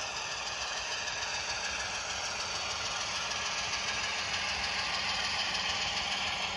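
HO scale model Union Pacific diesel locomotive and its freight train running past, a steady engine-like sound with some rattle that grows a little louder about five seconds in.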